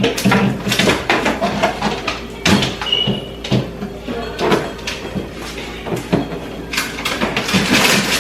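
Repeated knocks and clatter of household items and containers being handled and set down, with doors or drawers sliding.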